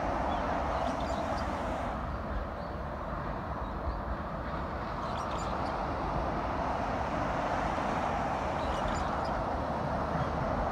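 Steady traffic noise from an expressway, trucks and cars running over the road without a break.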